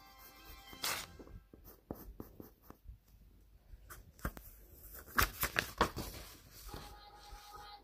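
Pencil scratching on paper in short strokes, then the sheet of paper rustling and knocking as it is picked up and handled, loudest about five seconds in.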